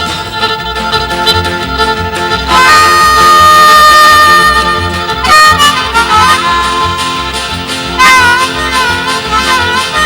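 Country harmonica solo over a guitar and double-bass rhythm backing: a long held note a few seconds in, then wavering, bent notes near the end.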